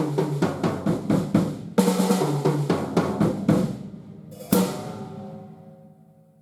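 TAMA Club-JAM small-size drum kit played in a quick fill across snare, toms and 18-inch bass drum, then one final hit about four and a half seconds in that is left to ring out and fade.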